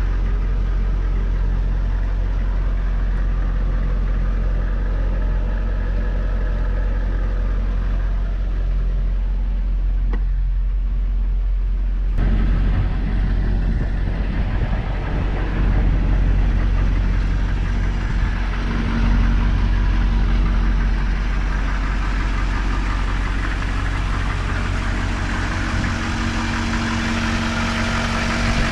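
M1008 CUCV pickup's 6.2-litre diesel V8 idling steadily. A hissier layer joins the idle about twelve seconds in.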